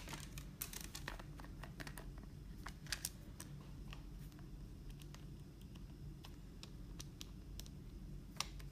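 Irregular small plastic clicks and taps as the back cover of an AGM A8 rugged phone is pressed and snapped into place around its edges, with a few louder clicks near the start, about three seconds in, and near the end.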